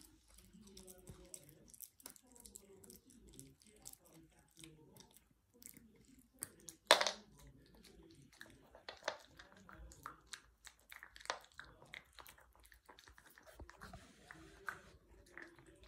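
Poodle chewing a hard dog chew, with frequent sharp crunches and clicks of teeth on the chew and one much louder crack about seven seconds in.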